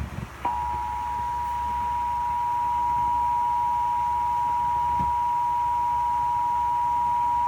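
Emergency Alert System two-tone attention signal: two steady tones sounded together (853 and 960 Hz), starting about half a second in and holding unchanged. It signals that an emergency alert message, here a severe thunderstorm warning, is about to be read.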